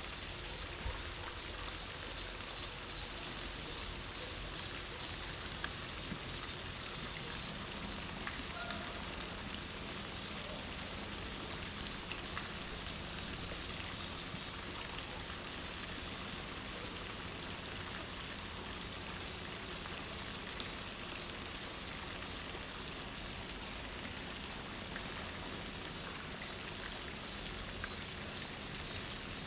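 Steady, even outdoor background hiss with a few faint ticks.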